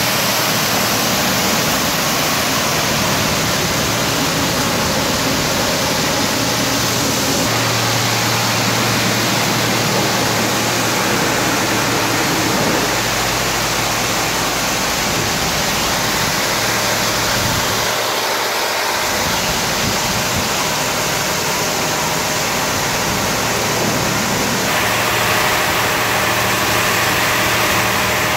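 High-pressure water jets of a touchless automatic car wash blasting a car: a loud, steady hiss of spray. A low machine hum comes in underneath several seconds in.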